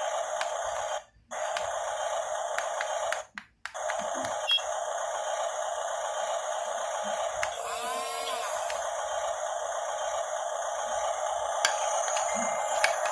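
Small electric drive motors and gearboxes of an RC model bulldozer running with a steady high buzzing whine. It cuts out briefly twice in the first few seconds, and the pitch sweeps up and down briefly a little past the middle.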